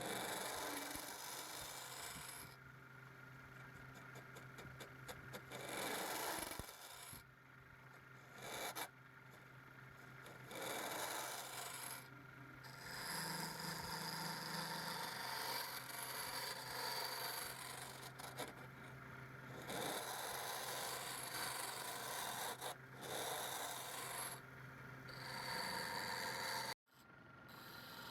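Wood lathe turning: a chisel scraping and cutting spinning wood in rough bursts of a second or a few seconds, over the steady hum of the lathe motor.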